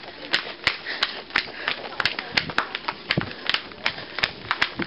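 Camera handling noise: a string of irregular sharp clicks and knocks, several a second, as the camera and its microphone are jostled while being carried, over faint room hubbub.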